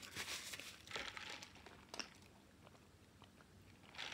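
Faint crinkling and rustling of paper napkins and food wrappers during a meal. There are a few short rustles in the first second or so and a single click about two seconds in.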